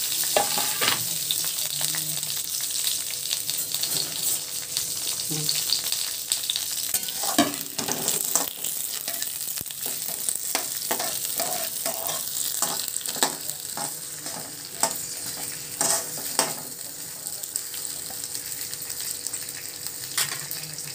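Chopped onions, tomatoes, garlic and green chillies sizzling in hot oil in a kadhai, with a steady hiss. A metal spatula stirring them scrapes and clinks against the pan many times, most often through the middle.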